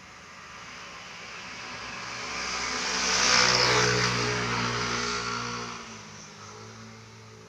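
A motor vehicle passing by, its engine and tyre noise swelling to a peak about three and a half seconds in and then fading away.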